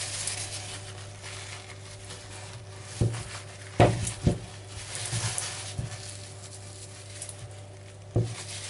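A spoon and a china plate knocking and clinking on a kitchen counter while sauce is spooned over the food, several short knocks, the loudest a little under four seconds in and another near the end. A steady low hum runs underneath.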